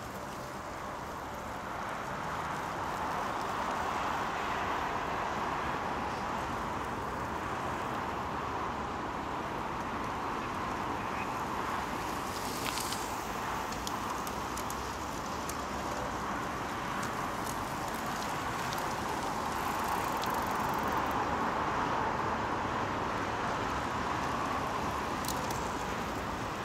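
Steady road noise of tyres on wet asphalt, swelling and easing slowly, with a few faint clicks.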